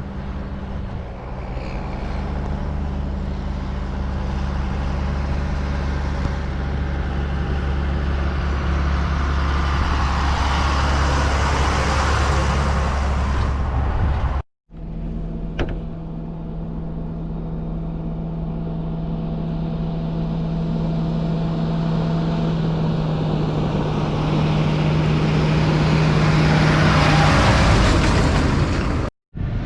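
Large farm machinery driving along a road: a steady engine drone with road noise that swells as each machine approaches. It cuts off abruptly about halfway through, and a second machine comes up the same way.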